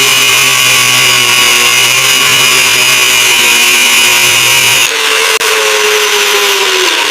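A handheld power tool running steadily at full speed with a high whine. About five seconds in the sound changes abruptly and the motor note then falls slowly.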